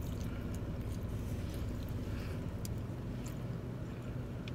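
Chewing a bite of a soft pretzel-wrapped hot dog, with a few faint mouth clicks, over the steady low hum of a parked car idling with its air conditioning running.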